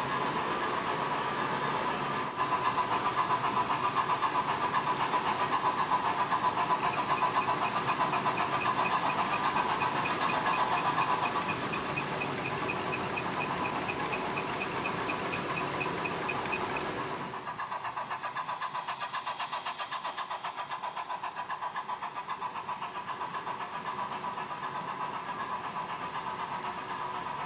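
H0 model trains running on the layout: a steady mechanical whir with a fast, even clatter, which drops in level and turns duller about two-thirds of the way through.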